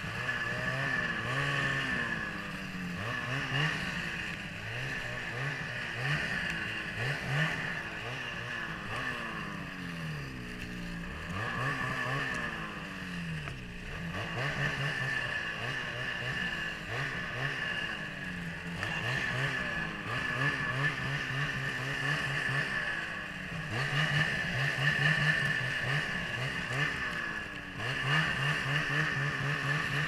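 Ski-Doo 800 E-TEC two-stroke snowmobile engine with an MBRP aftermarket exhaust, revving up and down over and over as the sled ploughs through deep snow.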